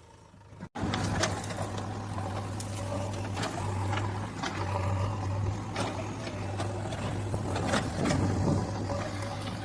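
JCB excavator's diesel engine running under load, a steady low hum with scattered metallic clanks and knocks from the bucket and arm as it digs. It cuts in abruptly about a second in.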